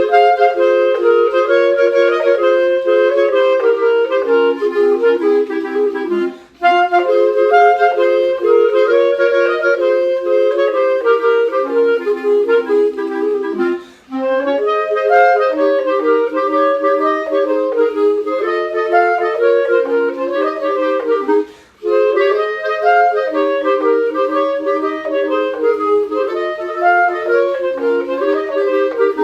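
Two clarinets playing a fast tarantella duet, two lines moving together in quick notes. Brief breaks between phrases come about 6, 14 and 22 seconds in.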